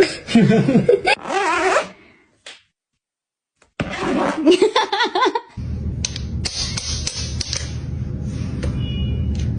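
Parrot imitating laughter in two short bursts of laughing, with a silent break between them. About halfway through, a steady low hum with scattered clicks takes over.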